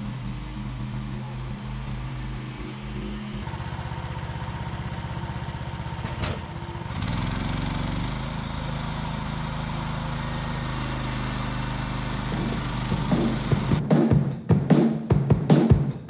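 Frontier OS27 portable bandsaw sawmill's gas engine running as the saw head is pushed through a cant, sawing it into inch-thick boards, its note shifting a couple of times. Music with drums and guitar comes in about three seconds before the end and is the loudest sound there.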